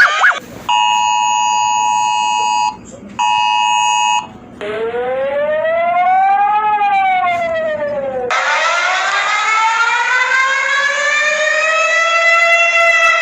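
Emergency alert tones. First comes a steady two-tone attention signal in two bursts, about two seconds and then one second long with a short gap between. Then a siren tone rises and falls once over about four seconds, and a slower siren wail begins, rising and starting to fall.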